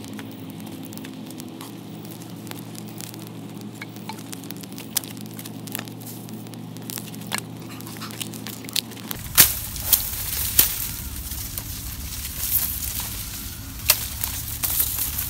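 Small wood campfire crackling and hissing, with scattered pops over a low steady hum. About nine seconds in this gives way to rustling and sharp snaps of dry reed stems being pushed through and handled.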